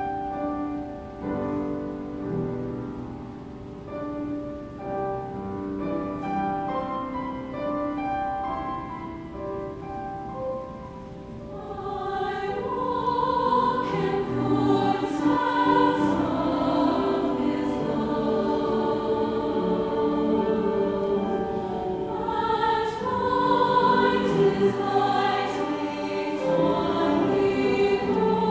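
Mixed choir singing with grand piano accompaniment, soft at first and growing louder and fuller about twelve seconds in.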